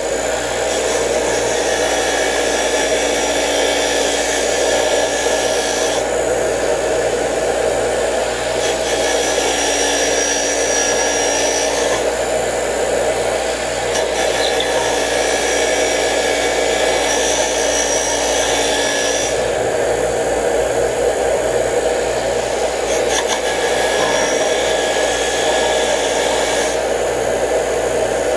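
Bench grinder's wire wheel running steadily, scrubbing rust off the iron core of an electric trolling motor's armature held against it. The high scraping note changes every few seconds as the part is pressed and turned.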